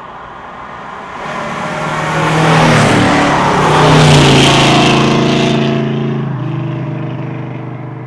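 A car driving past: its engine note grows louder to a peak about four seconds in, then fades with a falling pitch as it moves away.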